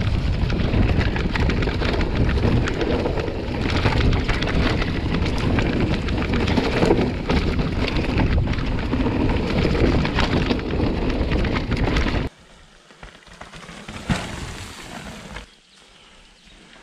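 Mountain bike riding over a rough trail: wind rushing on the microphone mixed with a constant clatter from tyres and bike. The noise cuts off suddenly about twelve seconds in, leaving much quieter scattered clicks.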